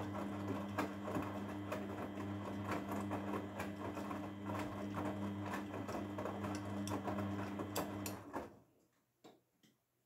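Grundig front-loading washing machine tumbling a coloured load during a 40 °C easy-care wash: the drum motor hums steadily while the wet laundry and water slosh and knock irregularly. About eight and a half seconds in the drum stops and the sound dies away, leaving two faint clicks.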